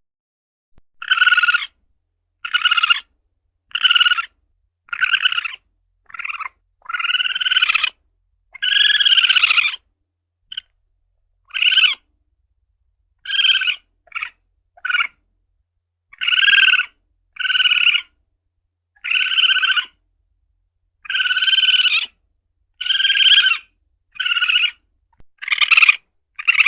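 Asian palm civet (luwak) calling: a long run of short, high calls, roughly one a second, each half a second to a second and a half long, with a few longer calls partway through and complete silence between them.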